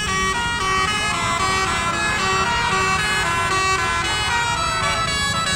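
Telolet multi-tone horn playing a melody of held notes that step up and down in pitch, over a steady low rumble.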